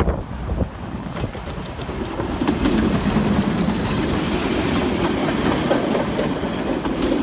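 NZR Ab class 699 steam train passing close by: the locomotive goes past, then its tender and wooden carriages roll by with wheels clattering over the rail joints, getting louder about two and a half seconds in.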